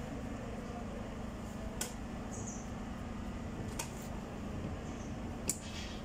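Screwdriver backing screws out of a washing machine's plastic drain panel: three faint, short clicks a couple of seconds apart, over a steady low hum.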